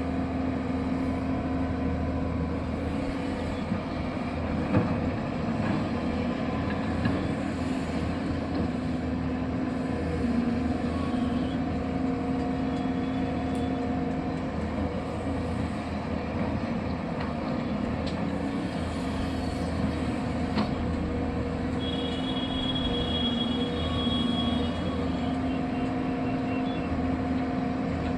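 Excavator engine running at a steady speed with a constant hum, with a few short knocks along the way.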